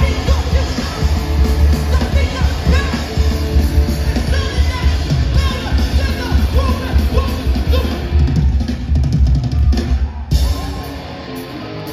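Hardcore punk band playing live through a large PA: distorted guitar and bass over a pounding drum kit, with voices yelling over it. About ten seconds in the full band cuts out and the sound thins to a quieter guitar.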